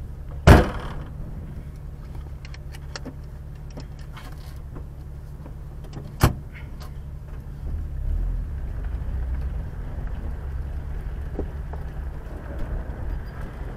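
Off-road vehicle's engine running low and steady while driving slowly over rough dirt, with a sharp knock about half a second in and another about six seconds in, and a few light clicks between them. The low engine rumble grows louder about eight seconds in.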